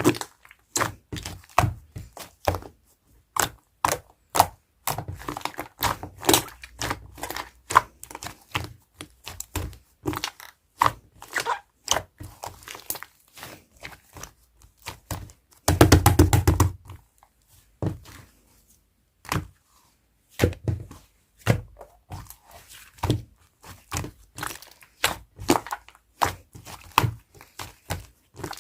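Slime being squeezed and poked by hand: a steady run of irregular sharp, sticky clicks and pops, with a louder, denser crackling burst lasting about a second near the middle.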